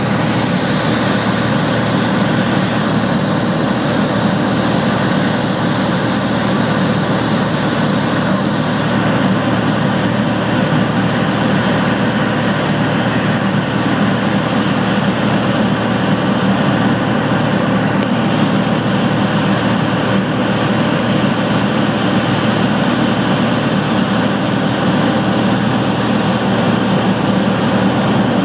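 A light airplane's engine and propeller drone steadily inside the cockpit during an instrument approach.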